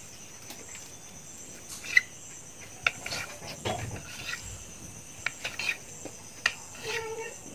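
Knife blade slicing through soft dough and tapping the stone countertop, a handful of sharp irregular clicks, over a steady high chirring of crickets.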